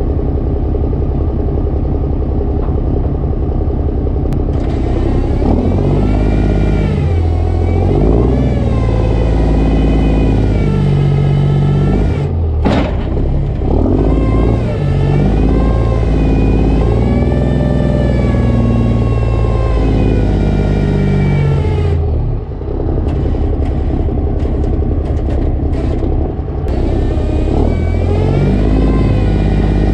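Straight-piped Cummins diesel of a Kenworth C500 winch truck, revved up and held under load while the winch pulls the P tank along the bed. The revs climb about four seconds in and rise and fall repeatedly, with one sharp clunk about twelve seconds in. The engine drops back toward idle a little after twenty seconds and picks up again near the end.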